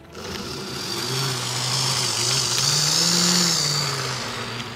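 Model Class 59 locomotive and its loaded freight wagons running past on OO gauge track: the motor hums with a tone that wavers in pitch, while the wagon wheels hiss and rattle on the rails. It swells to its loudest about three seconds in as the train passes, then eases.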